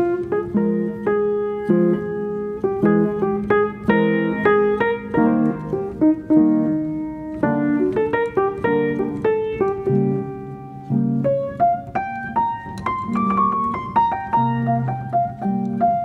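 Background solo piano music: a gentle melody of separate struck notes, each ringing and fading.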